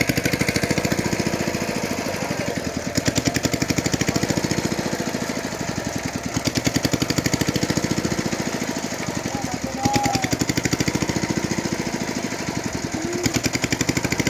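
A small engine running steadily with a rapid, even chugging that swells and fades slightly every few seconds.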